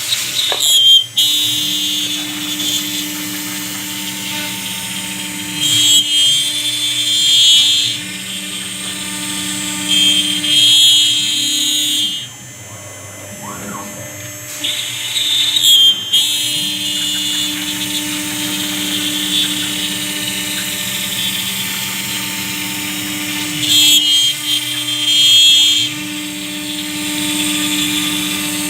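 CNC router cutting plastic sheet: the spindle runs with a steady hum, and louder, higher-pitched cutting passes swell and fade every few seconds. There is a brief lull about twelve seconds in.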